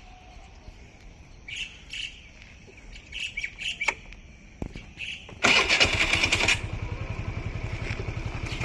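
Birds chirping in short bursts. About five seconds in, a small engine starts loudly and runs on with a steady, rapid low pulsing.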